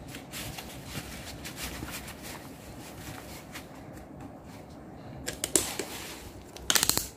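Faint rustling and light taps as feet settle into rubber slippers, then a few sharp slaps of the rubber soles on a tile floor near the end as she walks.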